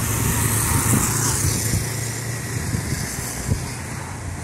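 A car going by on the street: its tyre and engine noise swells about a second in and fades away, over a low rumble of wind on the microphone.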